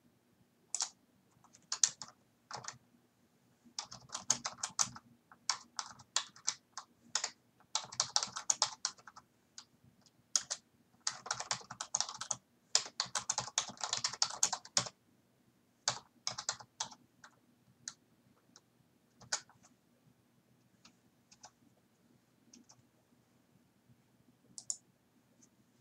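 Computer keyboard typing in bursts of rapid keystrokes, densest in the middle, then thinning to a few scattered single clicks toward the end.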